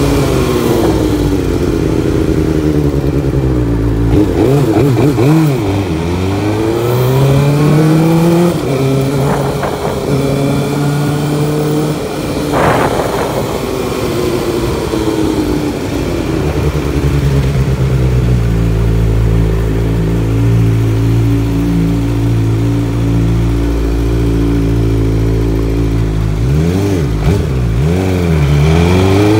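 Suzuki GSX-R600 inline-four sport bike engine under way, revving up and falling back repeatedly as the rider works the throttle and gears, with a stretch of steady cruising in the middle.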